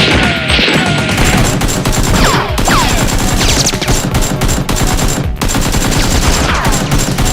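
Dubbed-in gunfire sound effects: sustained rapid automatic fire, with short falling whistling tones repeating over it.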